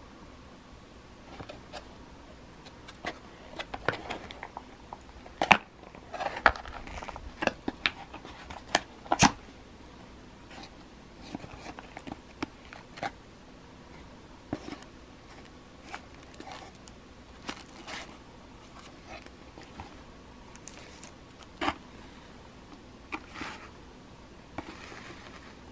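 Cardboard phone box handled and opened by hand: card scraping and sliding, with sharp clicks and taps, busiest in the first ten seconds, then sparser taps and a short plastic rustle near the end.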